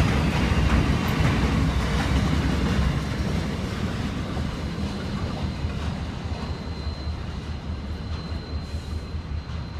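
Container freight train's wagons rolling past on the rails: a steady rumble with wheel clatter, slowly fading as the train draws away. A faint thin high whine comes in about six seconds in.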